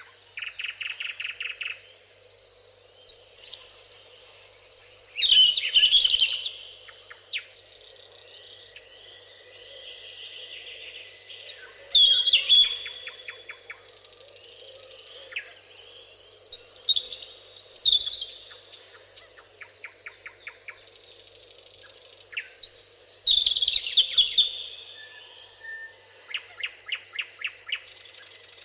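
Several songbirds singing and trilling. A loud song phrase comes back about every six seconds, over a steady high thin tone and a faint low even hiss.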